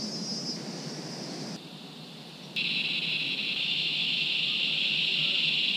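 Steady high-pitched insect chirring over a faint hiss, which jumps abruptly louder about two and a half seconds in.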